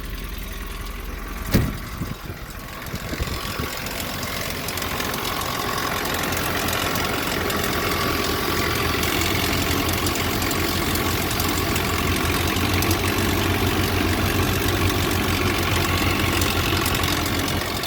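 Nissan D21 pickup's engine idling roughly with a rattle that the owner puts down to the timing chain; it runs unevenly because a blown head gasket has left cylinders 2 and 3 nearly dead. A single sharp knock sounds about a second and a half in, and the engine grows a little louder after that.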